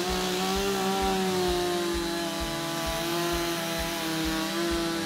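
Two-stroke chainsaw running at high revs as it saws into the base of a standing tree in a felling cut. The engine pitch sags slightly about two seconds in and again near the end as the chain bites into the wood.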